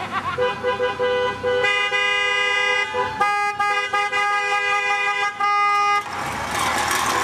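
Two-note car horn honking: a few short toots, then long held blasts with brief breaks. About six seconds in, the horn stops and a broad rush of noise takes over.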